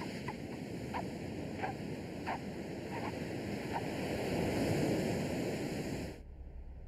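Ocean surf washing on a beach, with bare footsteps in sand about every two-thirds of a second for the first few seconds. The surf swells near the end and then cuts off suddenly, leaving only a faint low hum.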